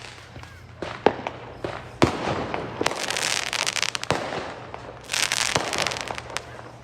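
Fireworks going off: several sharp single bangs, with two spells of dense crackling about three seconds in and again about five seconds in.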